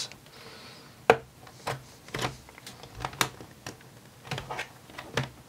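Plastic snap clips of an ASUS Vivobook A513EA's bottom cover clicking loose as a plastic pry tool is worked along the edge of the base: a series of irregular sharp clicks, the loudest about a second in.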